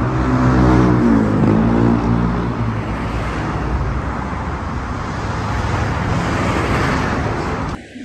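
Road traffic at a junction: cars and trucks drive past with steady engine and tyre noise. In the first two seconds one vehicle's engine drones loudly and its pitch rises and falls, then the traffic noise carries on evenly. The sound drops out briefly near the end.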